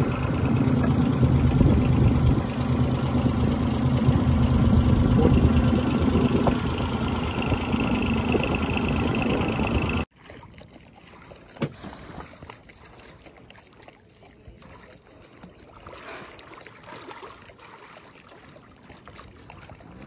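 Wooden long-tail fishing boat's engine running steadily under way. About halfway through it cuts off suddenly, leaving only faint lapping water and light wind.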